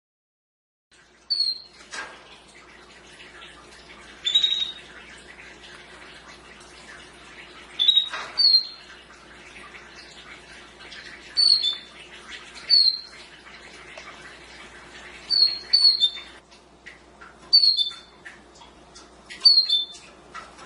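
Domestic canary giving short, sharp chirps, each a quick falling note, repeated every one to three seconds over a faint steady background. It starts about a second in, after silence.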